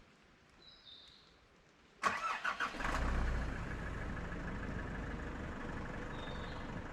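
A vehicle's engine cranking briefly and catching about two seconds in, then settling into a steady idle. A bird chirps briefly before the start and again near the end.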